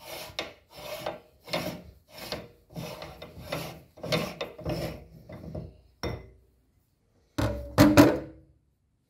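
Threaded retaining ring of a hand-cranked meat grinder being unscrewed by hand, the threads scraping in short strokes about two a second. After a pause, a few loud knocks near the end.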